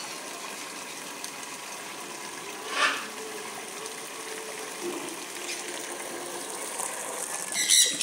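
Water being poured steadily into a plastic container. A bird calls briefly about three seconds in, and a parrot squawks loudly near the end.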